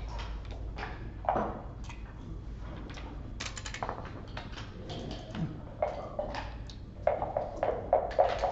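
Room sound: scattered light clicks and taps over a low steady hum, busier near the end.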